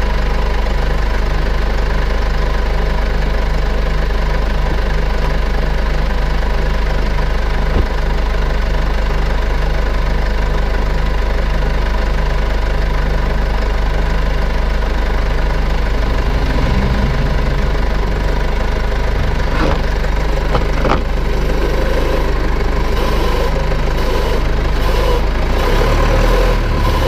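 Infiniti Q50 running, heard from inside its front wheel well: a steady mechanical drone with a low, evenly pulsing hum. The pulsing breaks up about two-thirds of the way through, and a brighter, wavering hum rises near the end.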